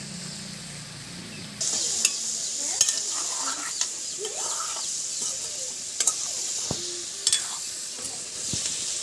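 A watery spice mixture sizzling and bubbling in a hot iron karahi over a wood fire; the sizzle grows louder about a second and a half in. A few sharp clicks sound over it.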